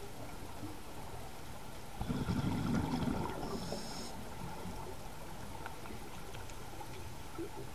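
Scuba diver's exhaled bubbles from the regulator, a low bubbling rush about two seconds in that lasts about a second, then a brief hiss, over a steady underwater background hiss.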